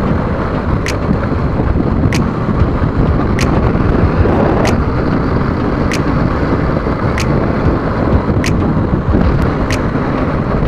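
Motorcycle riding at road speed, heard from a camera mounted on the bike: steady engine and road rumble with wind on the microphone. A sharp click repeats evenly about once every second and a quarter.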